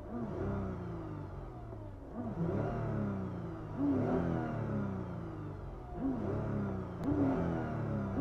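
Supercharged 3.5-litre V6 of a Toyota Crown Athlete +M, fitted with a TOM'S supercharger, blipped at standstill: about five throttle blips, each rising in pitch and dropping back, with the supercharger's whine heard on top of the engine.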